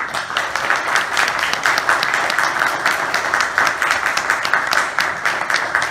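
Church congregation applauding: a loud, dense patter of many hands clapping that breaks out suddenly and keeps up evenly.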